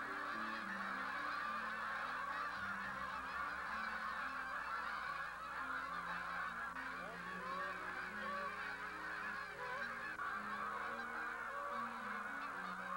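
A large flock of Canada geese in flight, honking: many calls overlapping into a constant clamour.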